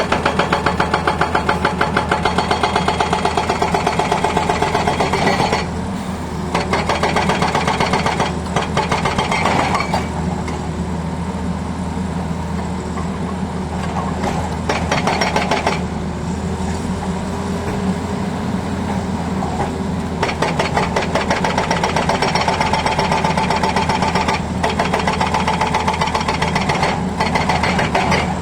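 Hydraulic breaker on a Tata Hitachi excavator hammering at road surface in rapid, even strokes, in several runs with short pauses between, over the excavator's steadily running diesel engine.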